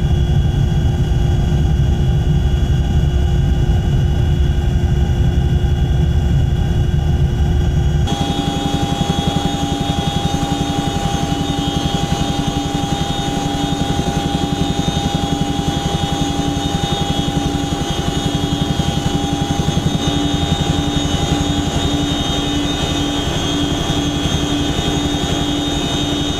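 CH-47F Chinook tandem-rotor helicopter in flight: a steady low rumble of rotors and engines, changing abruptly about eight seconds in to a closer, brighter sound with a steady turbine whine over a fast, even rotor beat.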